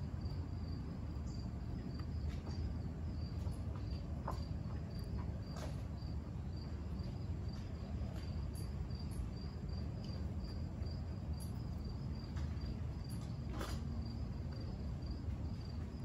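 A cricket chirping in a steady, evenly spaced run of short high chirps, over a steady low rumble.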